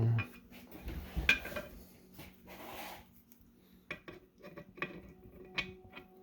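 Steel transmission parts clinking and knocking together as they are handled and fitted by hand: one sharp clink about a second in, a short scrape a little later, then a run of light clinks with a brief metallic ring near the end.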